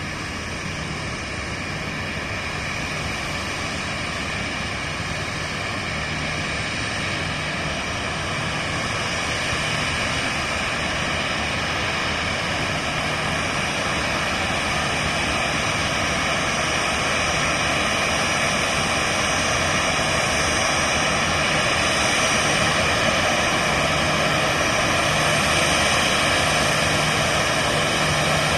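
Boeing 737-800's CFM56-7B turbofan engines running at taxi power: a steady jet whine with several high tones over a rushing noise. It grows slowly louder as the airliner approaches.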